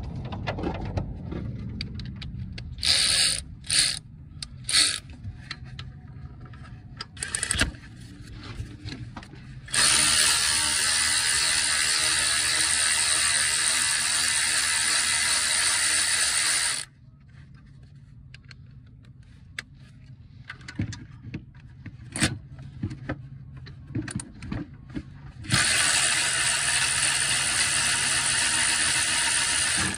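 Powered ratchet spinning out the alternator's mounting bolts: a few short bursts about three to five seconds in, then a long steady run of about seven seconds, and another run near the end.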